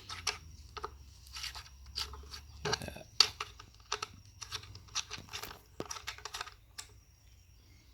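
Irregular rustling, crinkling and tearing of packaging with small knocks and clicks as speakers are unpacked and handled, the sharpest click about three seconds in.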